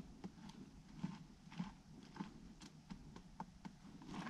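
Faint, irregular clicks and soft knocks, a few a second.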